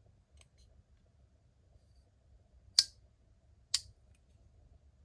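Titanium front-flipper folding knife (Damned Designs Djinn XL) working its blade: two sharp metallic clicks about a second apart, with a couple of faint ticks shortly before.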